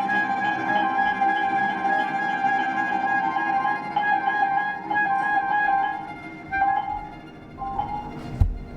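Chamber ensemble playing contemporary classical music: violin and flute hold a long high note over sustained lower tones. About six seconds in the texture thins to quieter, scattered notes, and a single sharp knock sounds near the end.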